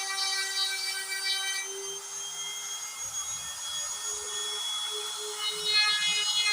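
DIY CNC router running, its motors whining in steady tones that shift to new pitches every second or two as the cutting moves change.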